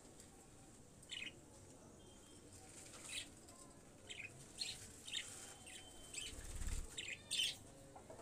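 Faint, short bird chirps scattered about once a second, with a brief low thump near the end.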